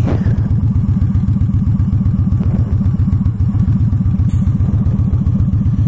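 Victory Highball's V-twin engine running steadily, heard from the rider's seat as a continuous low, even pulsing from the exhaust.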